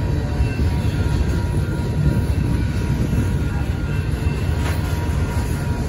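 Double-stack intermodal freight train rolling steadily through a grade crossing: loaded container well cars passing with a low, even rumble and wheel noise on the rails.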